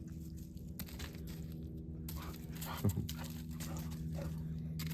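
A short animal whine that falls in pitch about three seconds in, over a steady low hum and faint rustling.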